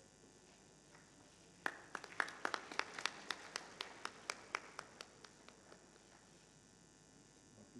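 A few people clapping, distinct claps about four a second. They start nearly two seconds in and die away after about four seconds.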